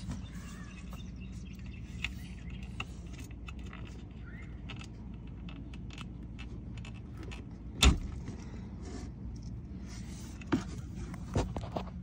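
Scattered light clicks and knocks from handling around the golf cart's body panels and wiring, with one sharp knock about eight seconds in, over a steady low hum.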